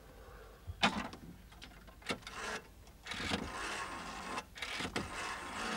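A phone-box payphone being worked to dial again. A couple of short knocks from the handset and cradle come about one and two seconds in. From about three seconds in there is a steady mechanical whirring from the phone.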